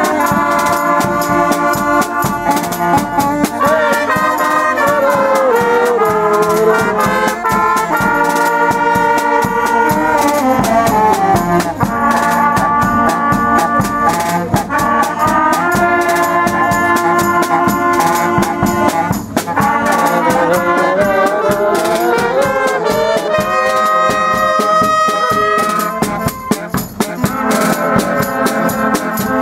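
A small brass band playing a lively tune, with trumpets and trombones carrying the melody over drums. The tune has runs that slide down and climb back up several times.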